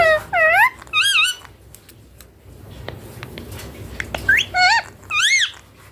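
Indian ringneck parakeet giving short, loud, pitched calls that swoop down and up. There are three near the start and three more near the end.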